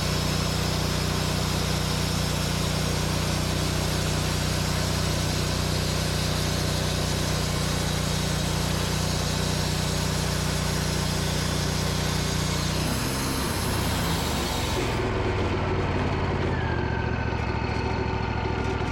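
Portable sawmill's engine running steadily under load as the blade cuts through a maple log, with a broad sawing hiss over the engine note. About two-thirds of the way in, the engine note drops and the high hiss cuts off, leaving the engine running at a lower, steady pitch.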